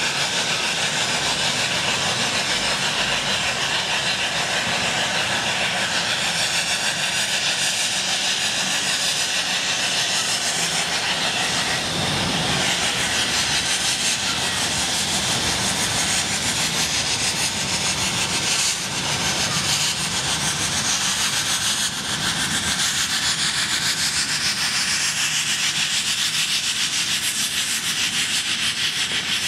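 Snowdon Mountain Railway rack steam locomotive No. 2 'Enid' working uphill while pushing its carriage, with a steady, continuous chuffing exhaust and hiss of steam.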